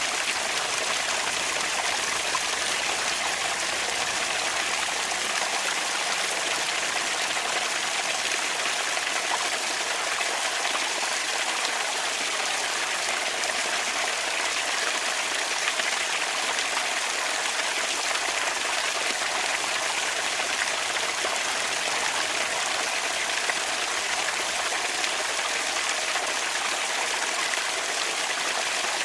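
Bamboo water fountain: water running and trickling in a steady, unbroken stream.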